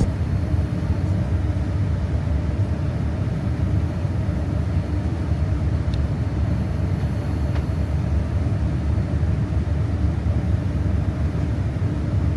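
Cabin noise inside a Boeing 787-9 airliner: its Rolls-Royce Trent 1000 jet engines and airflow make a steady low rumble with a faint hum, on the ground around takeoff.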